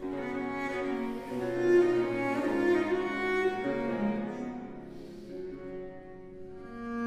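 Baroque cello sonata: the cello bows a melody over a continuo of violone, theorbo and harpsichord. The music is fuller in the first half and softer around five to six seconds in.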